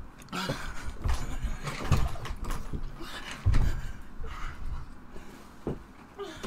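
Irregular thumps and knocks from a person moving about a small room: bare feet stomping on the floor, a chair being knocked, and a body dropping onto a bed, with the loudest thump about three and a half seconds in.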